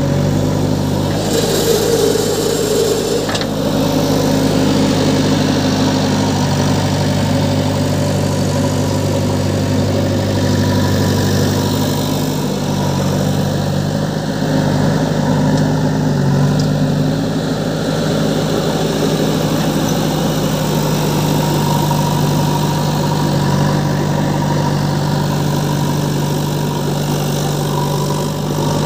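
Diesel engines of a JCB backhoe loader and a John Deere tractor running steadily at close range, briefly louder about two seconds in.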